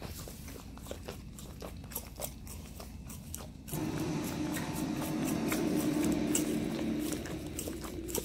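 A dog licking and lapping ice cream from a small plastic cup, a run of quick wet clicks from its tongue. About four seconds in, a louder, steady low droning sound joins in.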